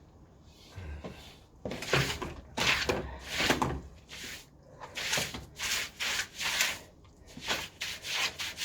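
Rhythmic scrubbing or scraping strokes on a hard surface, about two a second, starting a second or two in, as the gully area is cleaned up after the unblock.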